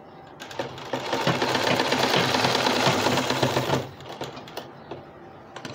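Sewing machine stitching a fabric binding strip onto a garment edge, running for about three seconds from about half a second in, then stopping. A few light clicks follow, with a sharper click near the end.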